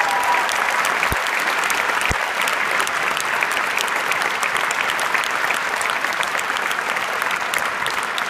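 A large audience applauding in a concert hall: dense, steady clapping that eases a little near the end.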